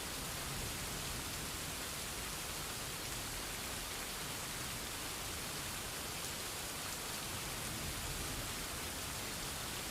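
Steady rain falling, a constant even hiss without separate drops standing out.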